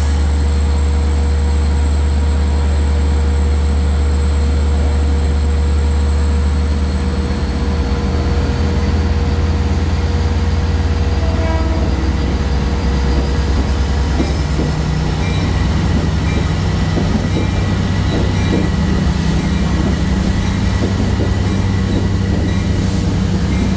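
LIRR DM30AC diesel-electric locomotive pulling a train out of a station: a heavy, steady engine drone that builds a few seconds in and steps up in pitch about halfway through as the engine notches up to get the train moving. A high whine climbs slowly in pitch as the train gathers speed.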